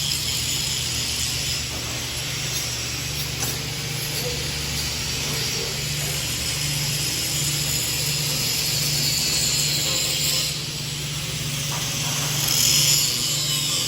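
Welding shop noise: a steady hiss of arc welding over a low machine hum that comes and goes.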